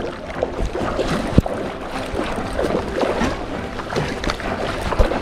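River water sloshing and splashing close to the microphone at the bank, with two sharp knocks, one about a second and a half in and one near the end, and faint music underneath.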